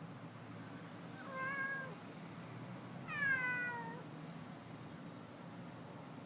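Domestic cat meowing twice, about a second and a half apart: the first meow held fairly level, the second louder and falling in pitch.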